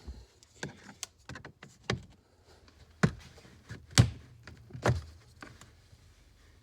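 Plastic kick panel under a Jeep Wrangler JL's steering wheel being pried and pulled off: a string of irregular clicks and knocks of hard plastic trim, the loudest about four seconds in.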